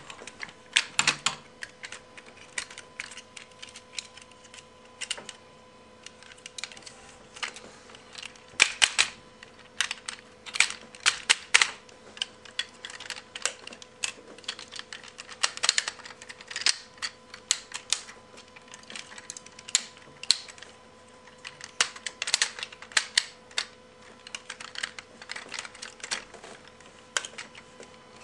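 Sixshot Transformers toy being transformed by hand: its plastic parts clicking and snapping as they are moved and locked into place. The clicks are sharp and irregular, some single, some in quick clusters.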